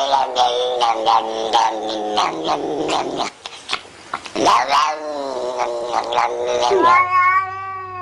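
A cat yowling in long, drawn-out cries, with a short break about three seconds in. A long yowl near the end slides down in pitch.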